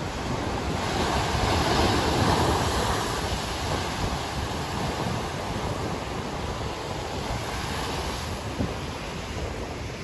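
Heavy surf: large waves breaking and washing over a concrete quay edge, the crash swelling about a second in and easing after about three seconds into a steady wash. Wind rumbles on the microphone.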